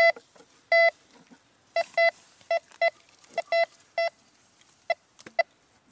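Metal detector beeping: about a dozen short beeps of one steady tone, singly and in quick pairs at uneven intervals, as the search coil is swept over the soil. The beeps signal a buried metal target under the coil.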